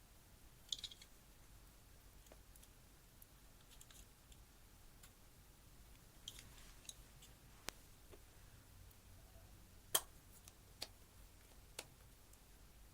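Faint, scattered clicks and small crackles over near silence, a few soft crackly patches early and mid-way, then four sharp single clicks in the second half, the loudest about ten seconds in.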